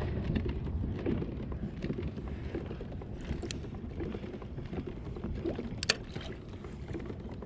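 Pedal-drive kayak moving slowly through calm water: a steady low rumble of the drive and the water along the hull, with a few sharp clicks about three and a half and six seconds in.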